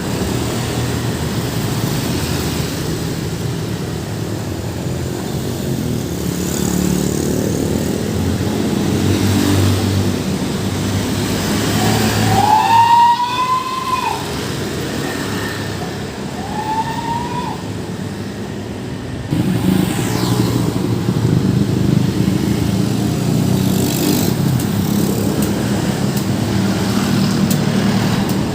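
Busy road traffic, vehicle engines running and passing steadily. About twelve seconds in a short tone with overtones rises and falls once, the loudest moment, and a shorter one follows about four seconds later; about nineteen seconds in a heavier engine gets suddenly louder as it comes close.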